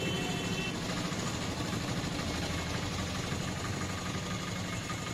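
The engine of an auto-rickshaw, heard from the passenger bench inside, running steadily as the vehicle drives along.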